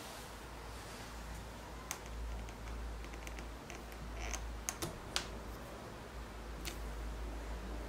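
A handful of sharp clicks and light taps as a glass jar is set under a plastic honey gate and the gate's lever is handled, with a cluster of clicks about five seconds in. A faint low hum runs underneath.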